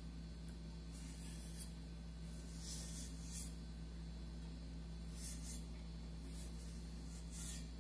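A damp cloth being rubbed over a bitumen-coated vase, a few short, soft scrubbing strokes at irregular intervals, wiping back the dark bitumen to lighten it. A steady low hum sits underneath.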